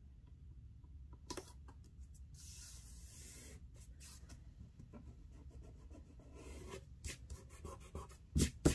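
Paper being slid and rubbed down on a scrapbook page, a soft scratchy rustle, followed by light taps and clicks of paper handling that get louder near the end.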